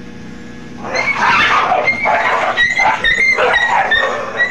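Askal street dogs fighting: a loud burst of rough snarling with short high yelps, starting about a second in and lasting about three and a half seconds.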